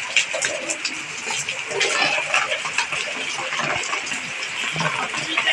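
Heavy rain pouring onto a wet concrete yard, a steady hiss with scattered splashes of water.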